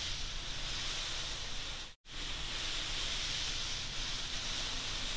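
Steady hissing noise with no pitch, strongest in the high range. It drops out for an instant about two seconds in, then resumes at the same level.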